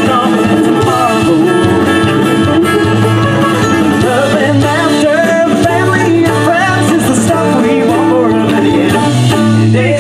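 Live string band playing through the PA: acoustic guitars over a steady bass line, with a wavering lead melody on top.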